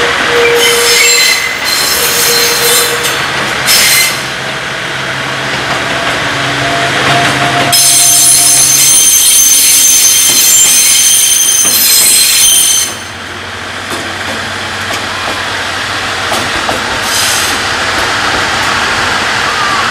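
Railway wheels squealing on the rails in shrill, ringing bursts. The squeal is loudest and longest from about eight seconds in until it cuts off suddenly near thirteen seconds, over a steady low engine hum.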